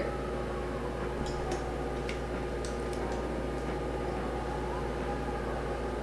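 Room tone: a steady low hum with a few faint, short clicks about one to three seconds in.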